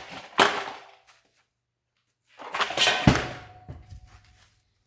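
Two bursts of knocking and clattering, as of parts or tools being handled, with a short quiet gap between; the second burst, about three seconds in, holds the loudest hit.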